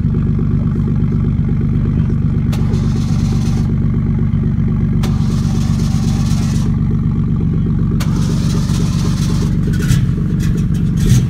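Toyota Supra's inline-six engine idling steadily through its exhaust, a low, even, lumpy running note with no revving.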